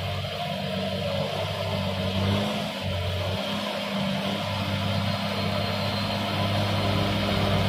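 Hino 500 series truck's diesel engine pulling steadily up a slippery muddy slope, a deep, bassy drone that slowly grows louder as the truck comes closer.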